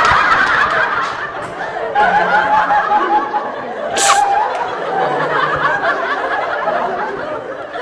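Laughing and snickering after a sneeze, with a short sharp burst of breath about four seconds in.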